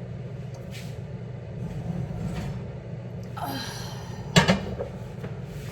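A single sharp knock, like something set down or a door shutting, about four and a half seconds in, just after a brief scraping rustle, over a steady low hum.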